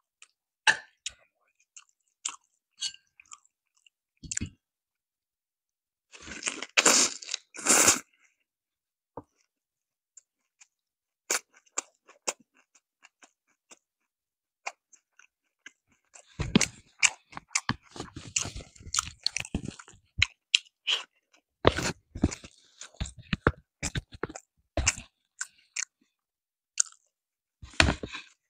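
Close-miked chewing and crunching of crispy fried chicken, with a loud crunchy burst about six to eight seconds in and a long stretch of rapid crunching chews through the second half.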